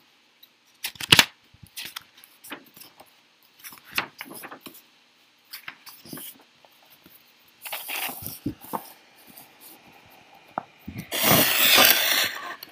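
Paper pages of a picture book being turned and pressed flat by hand: scattered light taps and clicks, a short paper rustle about two-thirds of the way through, and a louder, longer rustle of paper sliding near the end.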